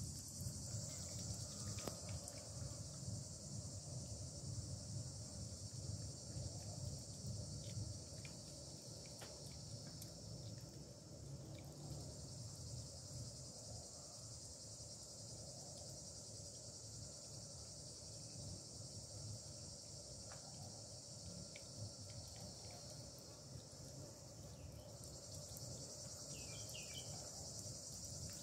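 Steady high-pitched chorus of insects in the yard, with a low background rumble beneath it.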